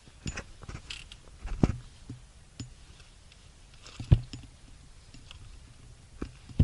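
Irregular crunching steps and knocks on loose rocky ground, with two louder thumps, about a second and a half in and about four seconds in.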